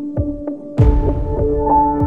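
Background news music: a held drone over a steady pulsing beat of about three thumps a second, swelling with a heavier hit and extra layered tones a little under a second in.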